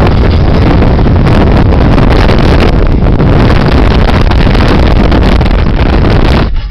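Vehicle travelling fast, its rush of wind and running noise very loud and buffeting the microphone, dropping off suddenly near the end.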